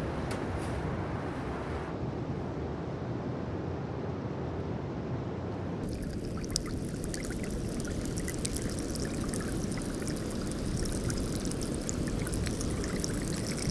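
Glacier meltwater running, a steady low rushing flow. About six seconds in the recording changes abruptly to a flow with many small clicks and crackles over it, like the crackling of melting ice.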